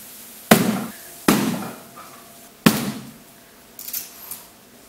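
Three sharp thumps, well spaced, as a cardboard-box air cannon is struck by hand, each blow pushing a ring of liquid-nitrogen fog out of the hole in the box. A few faint clicks follow near the end.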